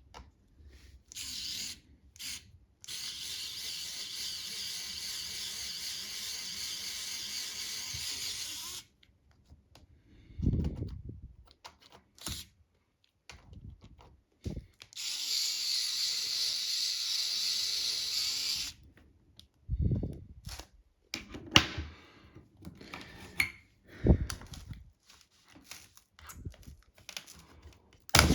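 A small power tool runs steadily in two bursts, about six seconds and then about four seconds, with knocks and handling clatter between and after them.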